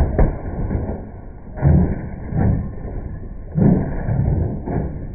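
A spinning-bar combat robot hitting a metal machine: a sharp crash at the start, then a run of heavy, dull thuds about once a second with rumbling in between.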